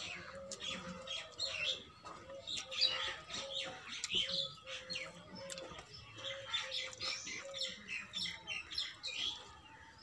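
Birds chirping, one repeating a short low note about twice a second that stops a little before the end, over soft wet sounds of fingers mixing rice and curry on a steel plate.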